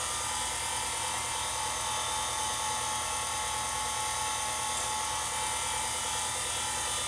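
Vintage watchmaker's lathe and its small belt-drive motor running steadily: an even, quiet mechanical whir with a fast, fine ticking underneath.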